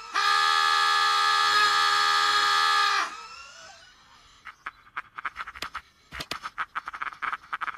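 A loud, harsh scream sound effect held on one pitch for about three seconds, then dying away. About four and a half seconds in, a fast run of clicks and short hits begins.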